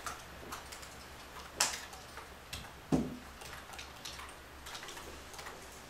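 Felt-tip marker writing on a whiteboard: faint scratchy strokes and light taps, with two sharper clicks about one and a half and three seconds in.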